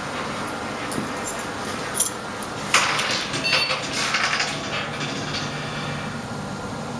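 Two sharp clicks, then a quick run of light metallic clinks lasting a couple of seconds, over a steady background hum.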